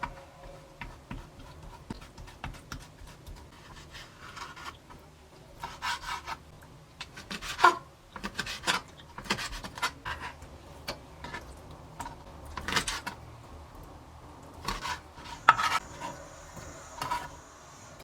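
Kitchen knife cutting and scraping ingredients on a wooden cutting board, with irregular knocks and short rasping strokes.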